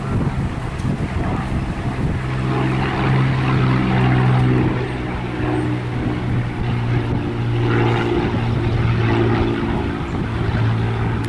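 A Cessna 182T Skylane flying low overhead, its six-cylinder Lycoming IO-540 engine and propeller droning steadily. The drone is loudest a few seconds in and drops slightly in pitch in the second half as the plane passes.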